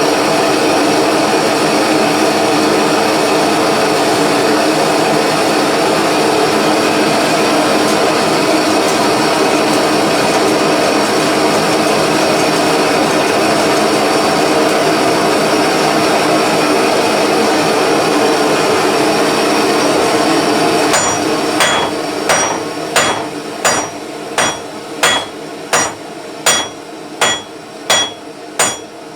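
A Radius blow lamp roaring steadily as it heats the rebar. About twenty seconds in the roar drops back, and a 48 oz ball pein hammer starts striking the hot rebar in steady, ringing blows, about three every two seconds.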